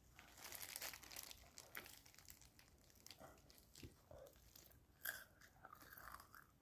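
Faint biting and chewing of fried chicken: a cluster of crisp crunches in the first second, then softer chewing clicks and another sharp crunch about five seconds in.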